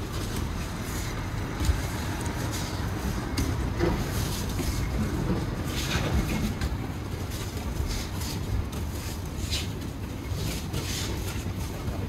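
Aikido practice on the mat: scattered short swishes and soft thuds of feet and practice uniforms moving, over a steady low rumble.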